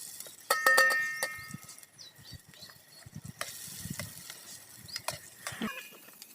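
Spoon stirring and scraping in a metal frying pan as green chillies fry in oil, with a loud ringing metal clang about half a second in and more knocks and clinks later.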